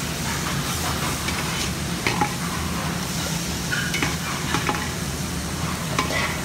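Hot oil sizzling steadily in a frying pan as onion fries, with a utensil stirring and clicking against the pan several times.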